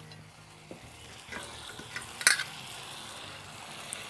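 Wild mushrooms in a little added water simmering faintly in a pan over a wood fire, with a few light clicks and one sharper metal clink about two seconds in.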